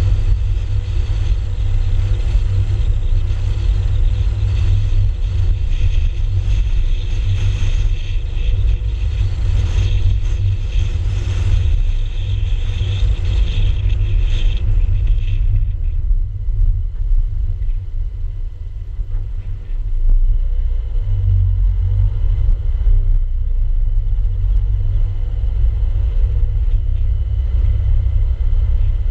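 Car driving along a road, heard through a GoPro mounted low on the outside: a steady, heavy low rumble of wind on the microphone and tyre noise. A higher hiss drops away about halfway through.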